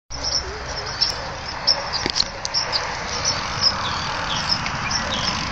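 Outdoor ambience: a steady rushing noise with many short, high chirps scattered through it and a couple of faint clicks.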